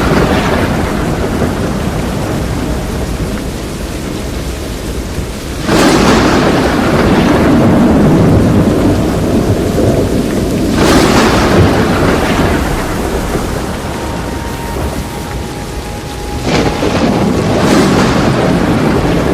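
Thunderstorm: heavy, steady rain with three loud thunderclaps, about six, eleven and sixteen seconds in, each fading over a few seconds.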